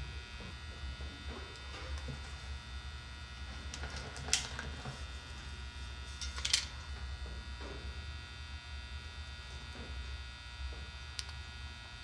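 Steady electrical hum, with two sharp clicks about four and six and a half seconds in and a fainter one near the end, from a TC-1 ratcheting crimper crimping an Anderson Powerpole contact onto a wire.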